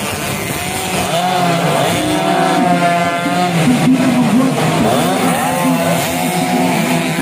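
Several stock two-stroke underbone moped engines running hard at the same time, their pitches rising and falling and overlapping as they rev in a race over a steady low drone.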